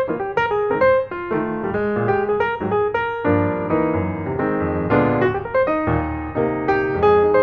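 Background piano music: a melody over chords, the notes striking and fading at a steady, moderate pace.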